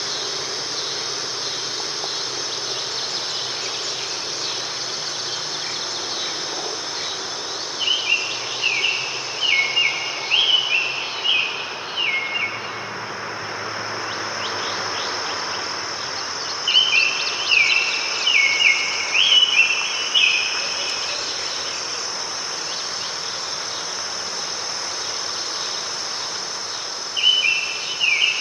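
A songbird sings three bouts of quick, stepped warbling phrases about nine seconds apart, over a steady high-pitched insect trill and an even background hiss.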